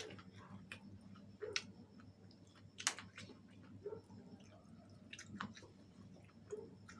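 Close-miked chewing of fried chicken wings, with irregular sharp clicks and crunches.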